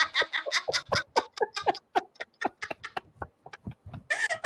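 Laughter: a long run of short voiced bursts of a few a second that gradually fades and thins out.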